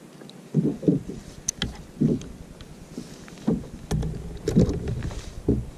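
Irregular dull thumps and a few light clicks from a plastic fishing kayak being knocked about as a caught pollock and a fishing rod are handled on board.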